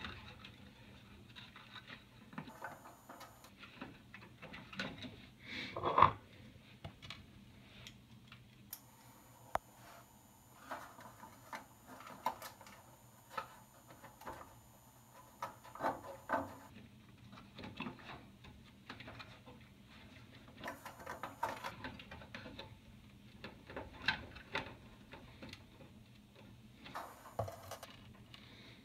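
Scattered light clicks, taps and scrapes of a replacement oven display board being fitted back into a range's control panel and screwed down by hand, with one sharper knock about six seconds in.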